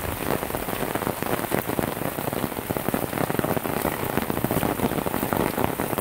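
Steady rain pattering on the surface of a muddy, brimming garden pond and the wet grass around it: a dense, even spatter of many small drops.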